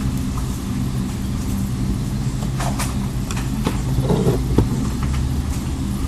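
A few sharp, light clicks and taps from handling the small plastic parts of a cell phone being taken apart, over a steady low hum.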